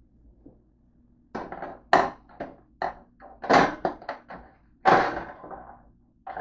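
A quick run of sharp knocks and clatters, hard kitchen objects being handled around a countertop toaster oven, beginning about a second in with the loudest hits near the middle.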